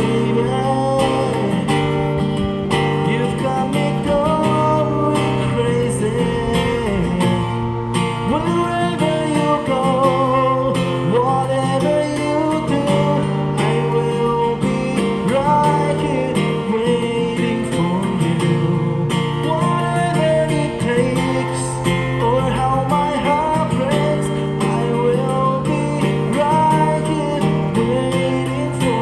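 A singer's voice carrying a melody with wavering vibrato, accompanied by acoustic guitar.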